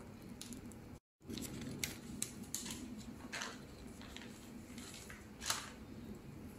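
Faint crinkling and crackling of plastic cling wrap being handled and smoothed on a wooden cutting board, in scattered short crackles with the sharpest about five and a half seconds in, over a steady low hum. The sound drops out briefly about a second in.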